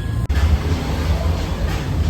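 Background music with a heavy steady bass, which cuts off abruptly and restarts about a quarter of a second in.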